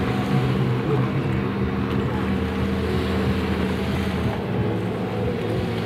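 Racing jet skis (personal watercraft) running at speed, several engines droning together at different pitches with small rises and falls in pitch, with wind on the microphone.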